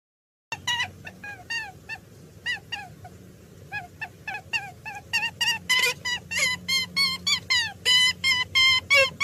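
Short, high-pitched animal yips or squeaks repeated at irregular intervals, each call dipping in pitch. They start about half a second in and come faster and louder near the end.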